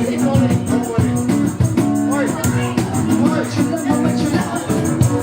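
Live band music: sustained chords and melodic lines that bend in pitch over a steady, quick high percussion beat.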